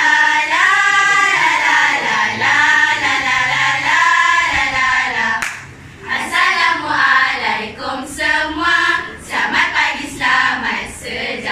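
A girls' choir singing together, with one brief break in the phrase about halfway through.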